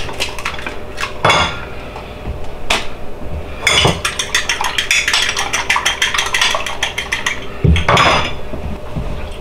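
A fork beating an egg in a ceramic bowl: a few separate knocks, then a fast run of clinks of the fork against the bowl, and a louder knock near the end.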